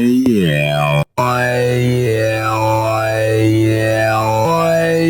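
Serum 2 synthesizer preset with a vocal-style sound, playing sustained chords under a vowel-like filter that sweeps up and down. A pitch glide at the start and a brief cut-out about a second in; the chord changes twice.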